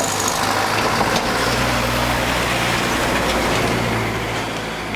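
Motor vehicle engine running, with a steady low hum and traffic noise that swells through the middle and eases off near the end.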